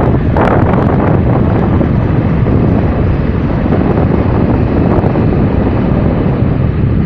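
Loud, steady low rumble of wind and road noise from a moving vehicle.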